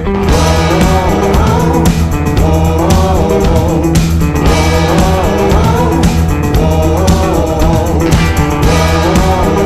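Background song with guitar, a steady beat and singing.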